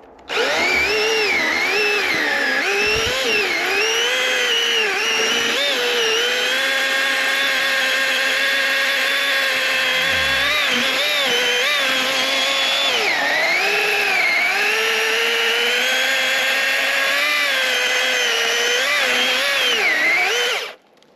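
Master Force 80-volt battery-powered electric chainsaw running and cutting through wood, most likely pine. It starts just after the beginning and runs for about twenty seconds, a steady high motor whine whose pitch keeps dipping and recovering as the chain bites into the wood, then stops about a second before the end.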